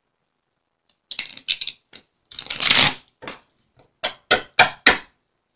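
A tarot deck being shuffled by hand: scattered rustles of cards sliding against each other about a second in, a longer dense burst of rustling midway, then four sharp card snaps near the end.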